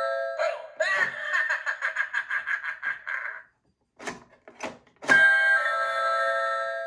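Halloween animatronic skull doorbell playing its sound effects. An electronic chime tone rings and fades, then a rapid pulsing, wavering effect sounds for about three seconds. After a short pause and two small clicks, the chime rings again near the end.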